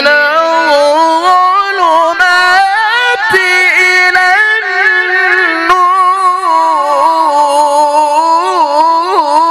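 A male Qur'an reciter holding one long melismatic phrase into a handheld microphone, with no break for breath. The pitch climbs in steps during the first few seconds, holds, then winds up and down in quick wavering ornaments toward the end.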